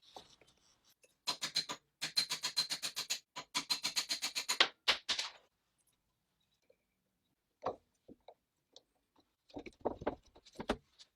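Rapid back-and-forth hand scraping or scrubbing strokes, about seven a second, running for about four seconds with a short break in the middle. Then a single knock, and a few knocks and clatters near the end.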